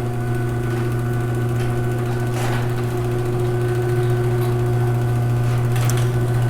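Electric garage door opener motor running steadily as it raises the door, a loud even hum.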